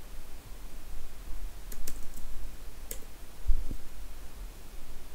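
Computer keyboard keystrokes: a few separate key clicks about two to three seconds in and a dull knock just after, over a low steady hum.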